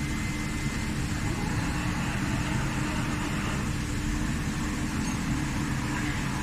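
Steady machinery hum and rumble with a constant low tone, unchanging throughout.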